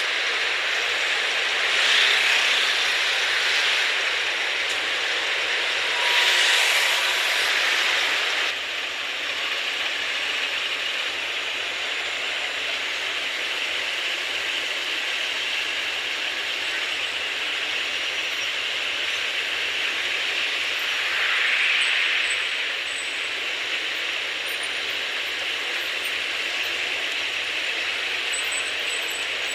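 Street noise of eight-wheeled armoured personnel carriers and military trucks driving past: a steady rushing engine-and-tyre noise that swells louder a few times as vehicles go by.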